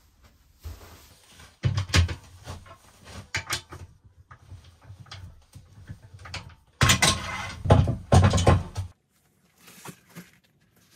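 Handling sounds at a stopped wood lathe: irregular knocks, clunks and rubbing of wood against the lathe's metal parts as a wooden block is fitted to the chuck and a platter is set against it. The loudest clatter comes about two seconds in and again for a couple of seconds from about seven seconds in.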